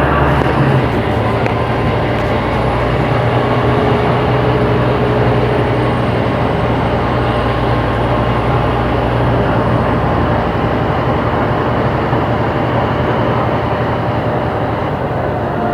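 Scania K270IB city bus with a ZF automatic gearbox, its five-cylinder diesel engine running steadily as the bus drives, in a loud even drone. The engine note dips slightly about a second in, and the level eases a little near the end.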